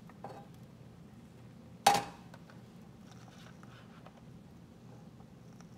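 One sharp knock about two seconds in, then faint crinkling and clicking as a plastic cooking-oil bottle is handled and its screw cap twisted open.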